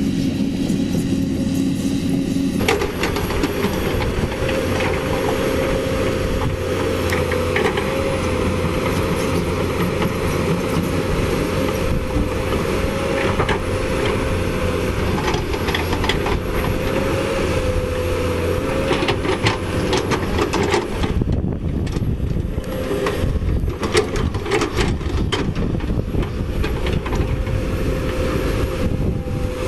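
Caterpillar 320D hydraulic excavator working: its six-cylinder diesel engine runs steadily under load with a steady whine above the rumble, and scattered knocks as the bucket digs into stone and soil.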